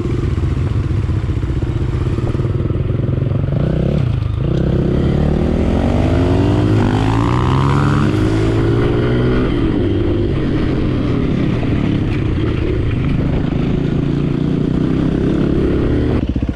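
Dirt bike engine running steadily, then revving up about four seconds in, its pitch climbing for several seconds before dropping back to a steady run.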